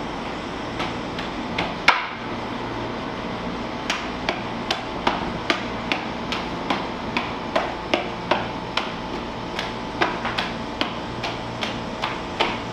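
Juggling clubs smacking into the hands as they are caught, a sharp knock at each catch: a few scattered knocks at first, then a steady run of about two or three a second.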